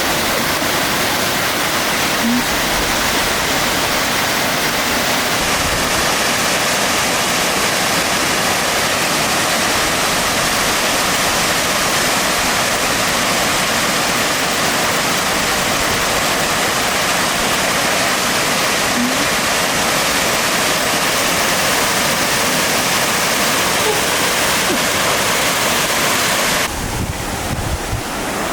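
Waterfall rushing with a loud, steady roar of falling water. About 27 seconds in, the high part of the rush drops away abruptly and the sound thins out.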